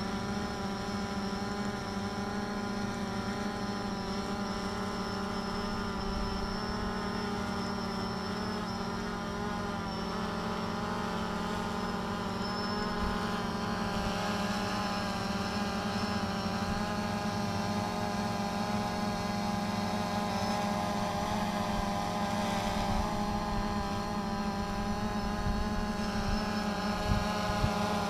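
DJI Phantom 3 Standard quadcopter on carbon fibre folding propellers, hovering: a steady buzzing whine of several pitches from its motors and props, wavering slightly and growing a little louder about halfway through.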